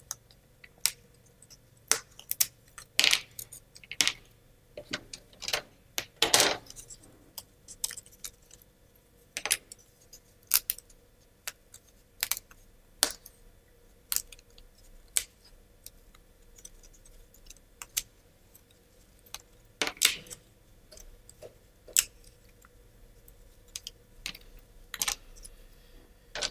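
Wooden parts of a laser-cut plywood model kit being pressed out of their sheet by hand: scattered sharp wooden clicks and snaps, with the loose pieces clattering as they are handled and laid down.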